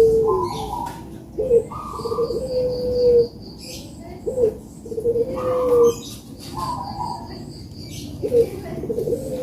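Puter (ringneck dove) cooing: three repeated coo phrases, each a couple of short notes leading into one long held low note, about every three seconds.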